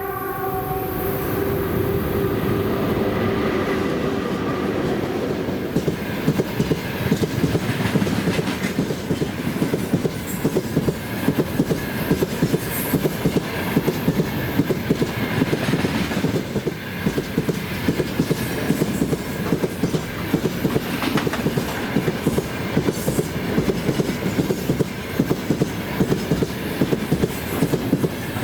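A freight train behind a VL80S electric locomotive passing close by. Its horn tone fades out in the first few seconds, then a steady rumble of wagons runs on with a regular clatter of wheels over rail joints.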